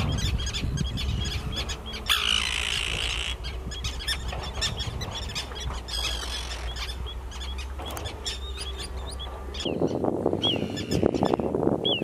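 Common tern colony calling: many short, sharp calls overlapping throughout, with a louder harsh, rasping call about two seconds in. Near the end a rough rushing noise joins the calls.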